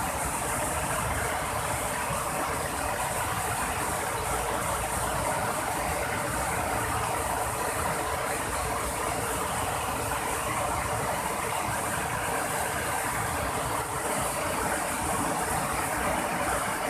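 Steady rushing of fast-flowing river water, an even unbroken noise.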